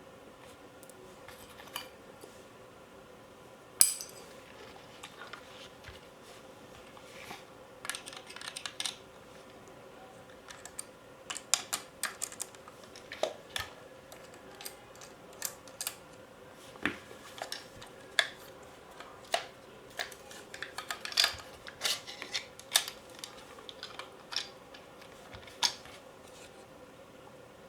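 Metal parts and tools of an airsoft AK clinking and knocking as the gun is taken apart by hand: scattered sharp clicks and taps, one sharp click about four seconds in, then more frequent handling clicks through the second half.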